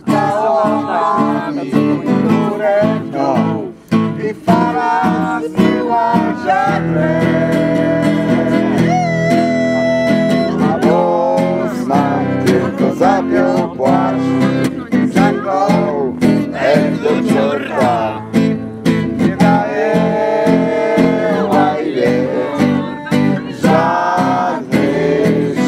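Acoustic guitar strummed steadily while a voice sings a shanty-style song.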